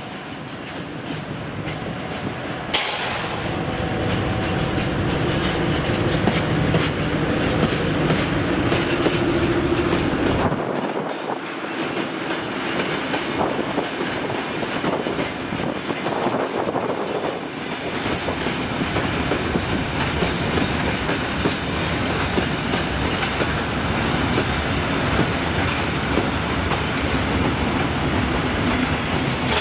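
Diesel shunting locomotive passing close with its engine running. A train of loaded hopper wagons follows, rolling by with wheels clicking steadily over the rail joints.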